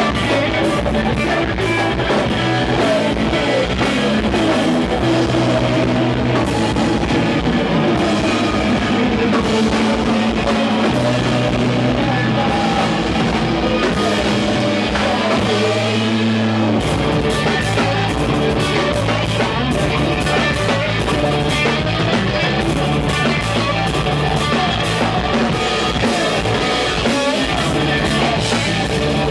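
Live rock band playing loud: electric guitar, bass guitar and drum kit together. The drums drop out for a moment about halfway, then the full band comes back in.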